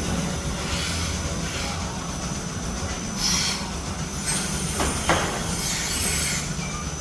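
Rotary milking parlour running: the carousel platform rolls with a steady low rumble. High hissing comes in twice, briefly about three seconds in and again for about two seconds a little later, with a thin squeal in the second burst and a single click in the middle of it.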